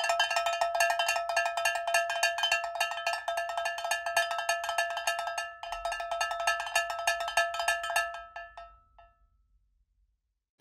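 A small metal bell ringing in a fast, continuous trill of rapid strikes, with a brief break about halfway. It stops near the end and rings out.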